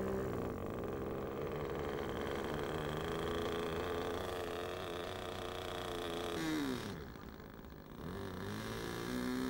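Small model-airplane engine running with a steady buzz. About six and a half seconds in its pitch drops sharply as it slows, then picks up again near the end.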